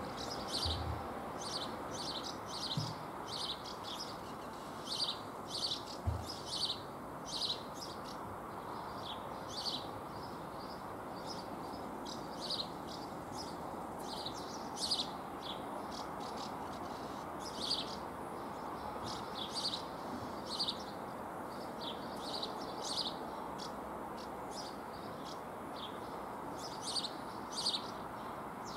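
Birds chirping: short, sharp calls repeated throughout, over a steady background hiss.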